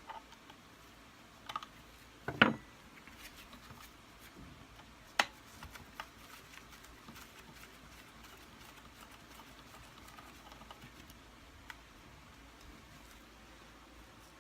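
Scattered clicks and knocks of tools and parts being handled as the headlight fitting of a Kirby Sentria II vacuum cleaner is dismantled. The loudest is a knock about two and a half seconds in, followed by a sharp click about five seconds in, then only faint handling sounds with one more click near the end.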